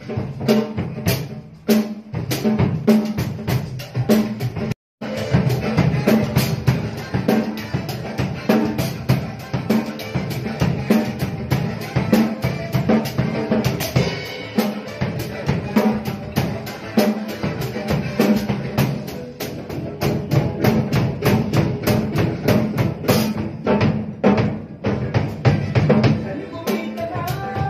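Acoustic drum kit being played: bass drum, snare with rimshots and cymbals in a busy, steady groove. The sound cuts out briefly about five seconds in.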